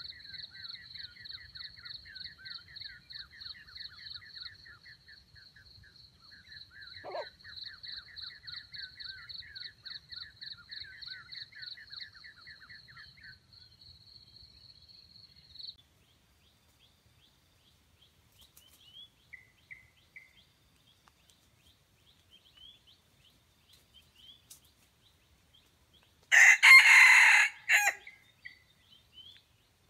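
A red junglefowl rooster crows once, loud and about a second and a half long, near the end. Before it, a faint, high, rapidly pulsing trill runs through the first half and stops about 16 seconds in.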